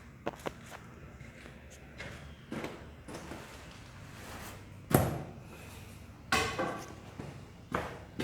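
A few scattered knocks and bangs in a room. The loudest comes about five seconds in, and another a little later rings briefly.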